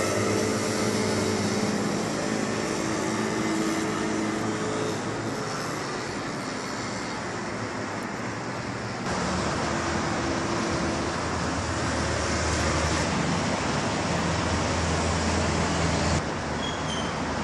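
Steady distant road traffic noise, a low rumble of engines and tyres, changing abruptly about nine seconds in and again near the end.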